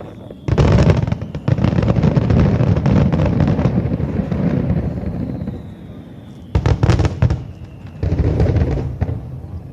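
Aerial firework shells bursting: a loud bang about half a second in runs into several seconds of dense crackling, then a cluster of sharp bangs near the seven-second mark and another burst a second later. Faint falling whistles sound between the bursts.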